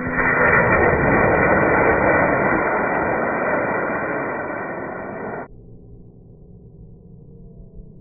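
Model rocket motor firing at lift-off: a loud, steady rushing hiss that fades slightly and cuts off suddenly about five and a half seconds in.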